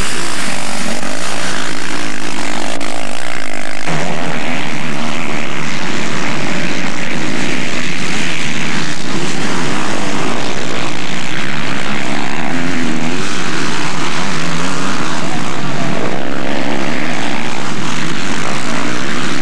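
Four-stroke motocross bikes racing on a grass track, engines revving and rising and falling in pitch as they pass, loud and close to the microphone. The sound changes abruptly about four seconds in.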